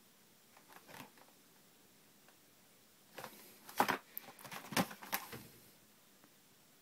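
Hands handling and turning over a cardboard screen-protector package: faint rustling about a second in, then a couple of seconds of rustling, scraping and light taps against the packaging about halfway through.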